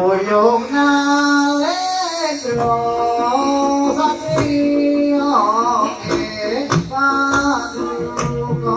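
Javanese jathilan music: a melody of long held notes that slide into pitch at their starts, over sharp drum strokes.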